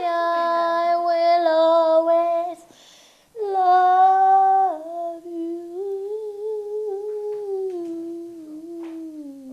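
A person humming slow, long-held notes: a wavering note, a brief break about two and a half seconds in, then a louder note that steps down and sinks slowly lower toward the end.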